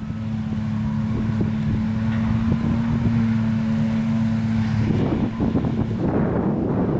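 Claas Jaguar self-propelled forage harvester chopping grass alongside tractors, a steady droning hum. Wind buffets the microphone throughout and grows stronger about five seconds in, covering the hum.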